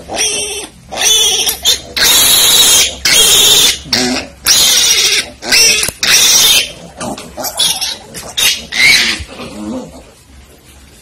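Newborn piglet squealing in a string of loud, long, shrill screams while held and restrained to have its needle teeth clipped with a nail cutter; the screams grow shorter and weaker from about seven seconds in and die away near the end.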